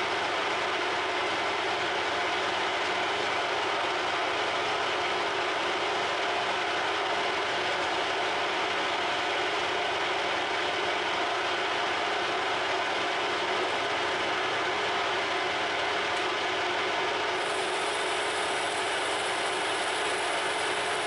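Harrison M300 geared-head lathe running steadily, its gearbox giving a constant mechanical whirr while a tool turns a brass bar. A brighter high hiss joins about three-quarters of the way through.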